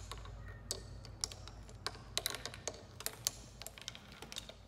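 Prepared turntable: stones suspended over the spinning platter tapping and clicking against its surface in an irregular patter of light clicks with no steady beat, the random rhythm the piece is built to make.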